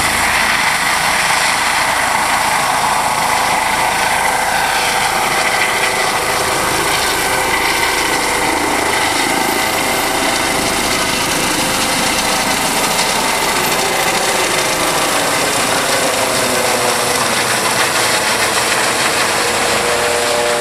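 Turbine helicopter with a ducted fenestron tail rotor lifting off and climbing overhead: a loud, steady whine over the rushing of its rotor, with a few high tones that drift slightly in pitch.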